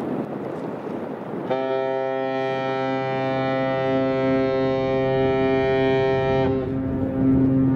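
A ship's horn sounds one long, steady blast of about five seconds, starting about a second and a half in, and a lower tone carries on after it stops. Wind rumbles on the microphone before the horn starts.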